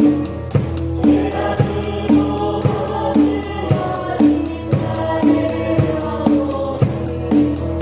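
Gospel praise song sung by a choir over a drum kit playing a shuffle beat. Cymbal strokes run steadily, with a loud drum accent about twice a second.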